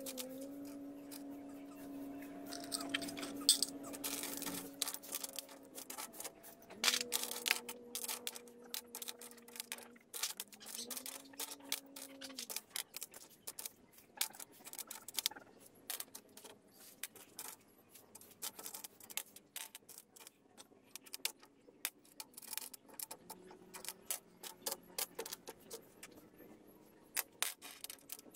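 Loose metal screws, bolts and washers clinking and jingling as they are picked over and sorted by hand on a plastic tabletop: a dense, irregular run of small clicks. A steady hum sounds in the background for roughly the first half.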